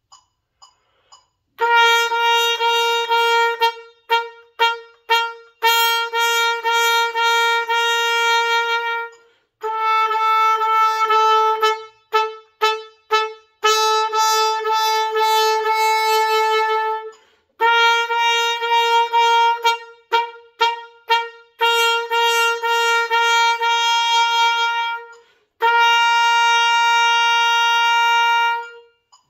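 Trumpet playing an articulation exercise on a single pitch. Long held notes alternate with runs of short, crisply tongued notes of the same pitch, with brief gaps between the phrases.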